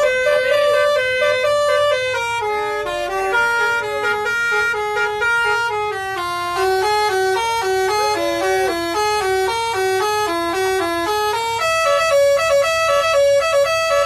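Indonesian tour bus 'telolet' musical horn playing a fast tune of short stepping horn notes, several sounding together, with an occasional swooping note.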